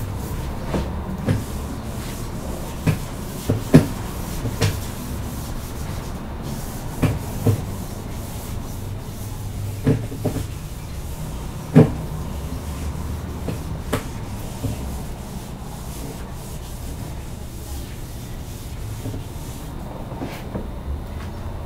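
Whiteboard eraser rubbing across a whiteboard, wiping off writing, with scattered sharp knocks along the way.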